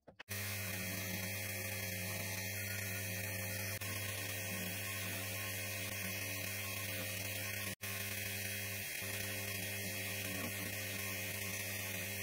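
Drill press driving a sanding drum as a spindle sander, its motor giving a steady hum with a hiss over it as a wooden grip is sanded on the drum. The sound starts suddenly just after the start and drops out for an instant about two-thirds of the way through.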